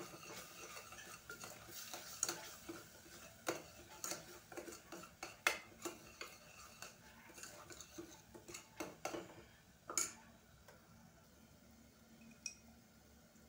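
Steel spoon stirring thick tomato-onion gravy in a stainless steel pressure cooker pot, scraping and clinking irregularly against the metal as freshly added spice powders are mixed in. The strokes stop about ten seconds in, with one faint click near the end.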